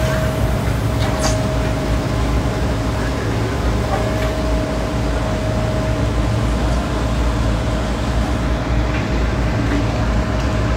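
Menzi Muck M545X walking excavator's engine running steadily while its boom and bucket move, with a steady whine over the engine sound.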